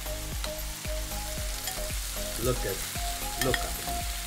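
Minced beef and vegetable sauce sizzling in a frying pan while elbow macaroni is pushed off a bowl into it with a spoon. Many short clicks and scrapes of the spoon against the bowl and pan run through the sizzle.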